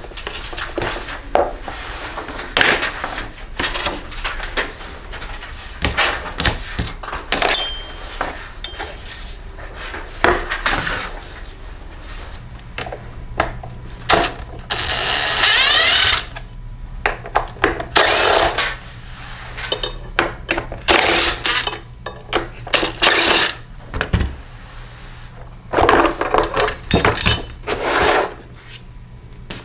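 Tools and metal parts of a Toro 21352 push mower clanking and rattling as it is taken apart, with many separate knocks throughout. A power tool runs in one burst of about a second and a half around the middle.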